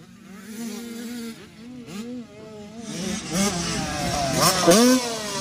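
Dirt bike engine revving up and down over and over as the throttle is worked, louder in the second half.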